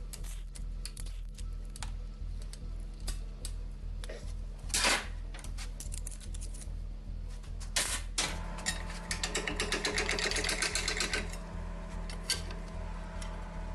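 Hand-tool work on a diesel engine during teardown: scattered metallic clicks and clatter, then about three seconds of fast mechanical rattling from a tool running bolts out, over background music with a steady low pulse.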